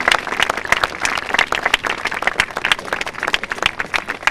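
Audience applauding: dense, irregular hand-clapping from a large crowd.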